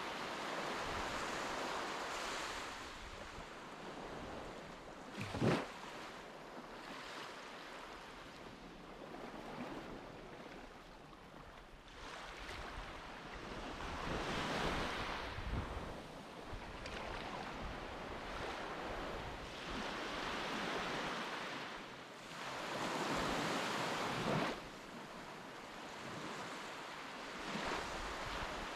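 Sea waves washing in and out, swelling and fading every few seconds, with wind buffeting the microphone. A single brief thump a little over five seconds in is the loudest moment.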